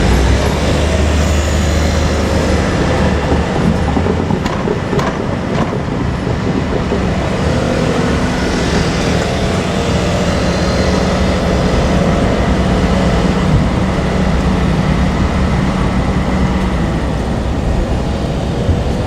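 Two-car KiHa 47 diesel railcar train running past at close range: steady diesel engine drone and the rumble of wheels on the rails, with a few rail clicks about five seconds in.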